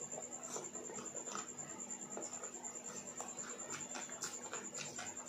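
Eating sounds of rice and curry eaten by hand: soft wet chewing and lip smacks, with fingers mixing rice and kadhi on the plate, making small irregular clicks several times a second. A steady high-pitched whine runs underneath.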